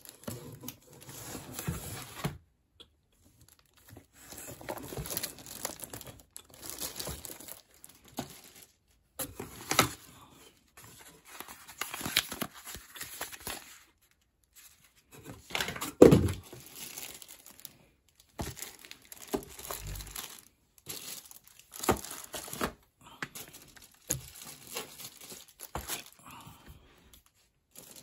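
Plastic-bagged product boxes and a paper mailer crinkling and rustling as they are lifted out of a cardboard box and handled, in intermittent bursts. A single thump about halfway through is the loudest sound.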